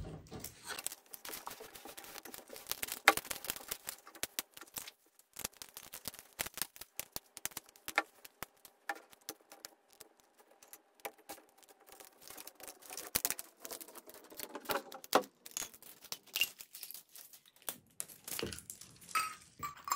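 Plastic wrapping crinkling and tearing as a Poké Ball tin is unwrapped, in dense, irregular crackles and clicks.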